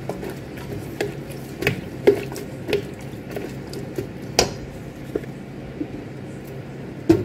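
A spatula stirring carrots and chorizo in shallow broth in a nonstick electric multi-cooker pot: wet stirring with irregular knocks and scrapes against the pot, the loudest a little past halfway. A steady low hum runs underneath.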